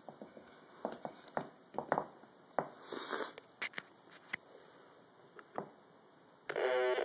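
Small clicks and knocks of a wooden enclosure being handled as its lid is fitted, with a brief scrape about three seconds in. Near the end a homemade Atari Punk Console noise synth, built on three 555 timers, switches on with a sudden loud square-wave tone.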